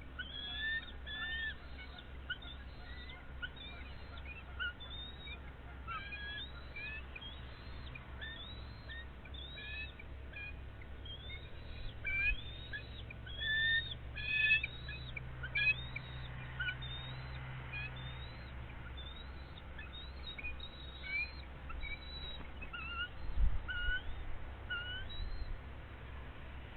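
Birds chirping: many short, high chirps, each a quick hooked note, following one another irregularly and busiest in the middle.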